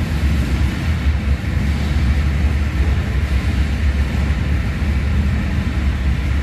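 Steady low rumble under a hiss, even throughout.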